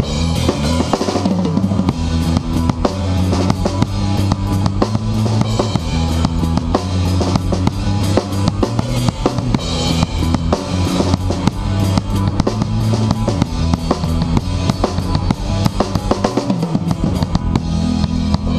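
Live rock band playing: a drum kit keeps a steady, busy beat of kick, snare and cymbal hits under low bass notes and electric guitar.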